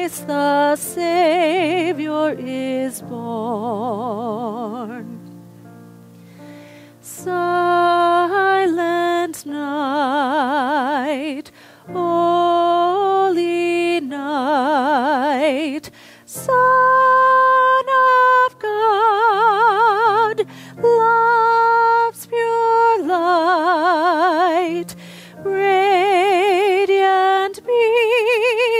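Slow, tender music: a single high voice sings long held notes with a wide, even vibrato over sustained low accompaniment chords.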